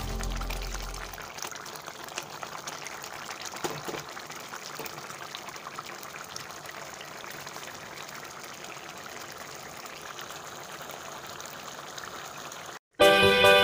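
Mango chutney bubbling as it simmers in the pan: a steady soft hiss with a few faint pops. It breaks off near the end and music starts.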